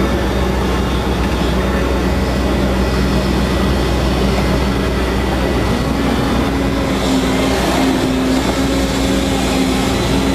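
Excavator engine and hydraulics running steadily while a tiltrotator swings and tilts a compaction wheel through loose soil. A higher steady hum joins the drone about two-thirds of the way through.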